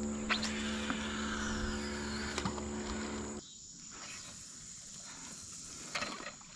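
A boat motor running steadily, cutting off abruptly about three and a half seconds in. Faint insects chirp under it and carry on in the quieter stretch after.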